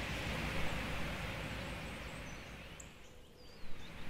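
Steady background hiss with a low hum, dipping briefly about three seconds in, then a faint click near the end.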